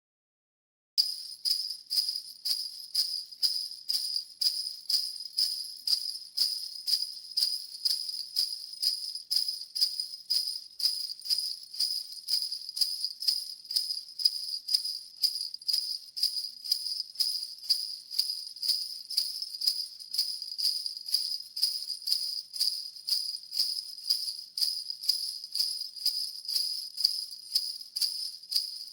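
Sleigh bells shaken in a steady, even beat of about two shakes a second, starting about a second in.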